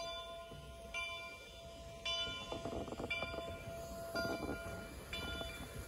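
Steam locomotive 3716's bell ringing steadily, struck about once a second, each stroke a clear ringing tone, with two short rougher bursts of train noise about halfway through.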